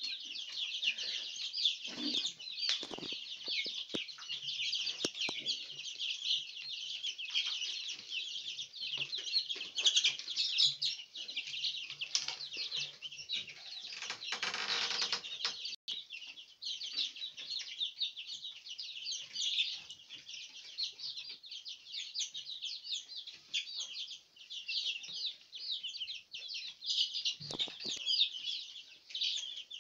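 A flock of young kienyeji chicks peeping continuously: many high-pitched cheeps overlapping without a break. A brief louder noise comes about halfway through.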